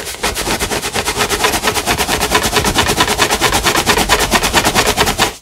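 Rubber balloon rubbed rapidly back and forth on a person's hair, a fast even rasping rhythm of about nine strokes a second that stops just before the end: the balloon being charged with static electricity by friction.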